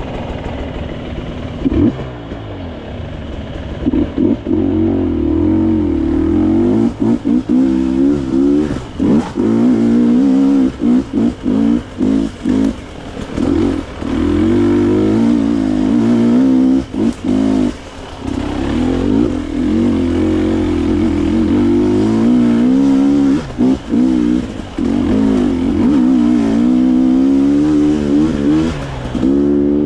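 Dirt bike engine revving hard and easing off again and again as it is ridden off-road, its pitch rising and falling with the throttle, with many brief drops where the throttle is shut.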